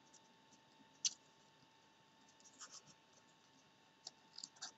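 Scissors snipping paper, cutting a small printed picture out around its outline. There are a few short crisp cuts: the loudest about a second in, a couple more past halfway and a quick cluster near the end, over a faint steady hum.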